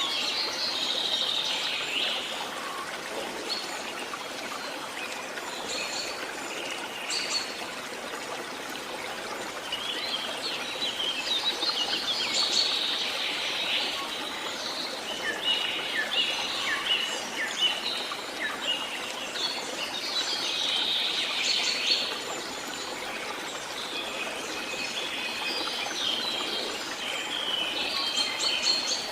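Several songbirds chirping and trilling, in bursts that come and go, over a faint steady hiss that may be running water.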